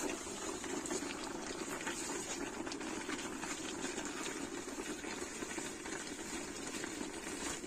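A big pot of leafy pig feed boiling, with steady bubbling.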